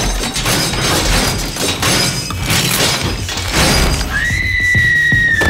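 Horror film soundtrack: a dense run of crashes and smashing impacts, then, about four seconds in, a woman's long high-pitched scream.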